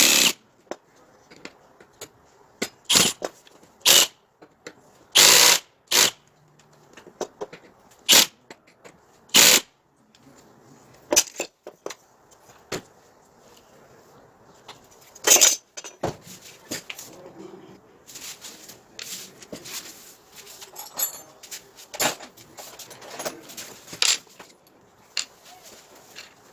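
Workshop tool noise from hands-on metal and wood work: a string of irregular sharp knocks and clanks, with several short noisy bursts of about half a second each, the loudest about five seconds in and again about fifteen seconds in.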